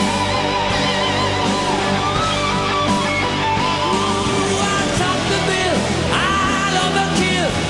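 Rock music with electric guitar and singing.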